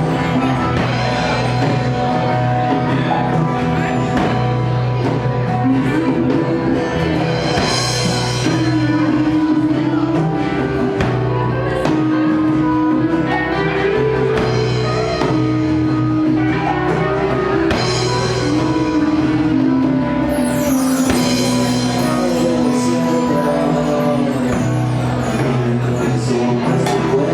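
Live psychedelic rock band playing: sustained, shifting guitar notes over bass and drum kit, possibly with some singing. The music holds at a steady level with no break.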